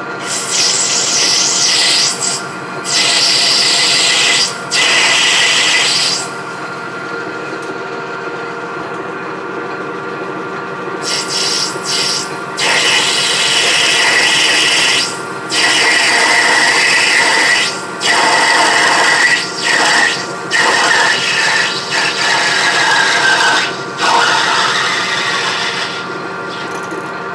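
Metal lathe running with a steady tone while a parting-off tool is fed into spinning brass stock in repeated stretches of a few seconds, each cut adding a loud rasping hiss that drops away between feeds.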